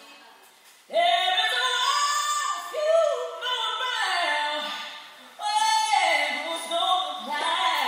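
A woman singing a slow song's opening in two long phrases, the first starting about a second in and the second about five and a half seconds in, with no beat under the voice.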